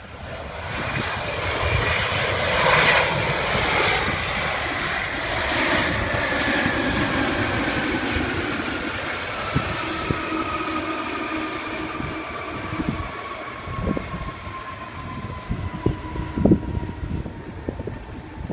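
A Boeing 777-200 passing on its landing, the rush of its twin turbofan engines swelling quickly to a peak, then fading as the engine whine glides steadily down in pitch.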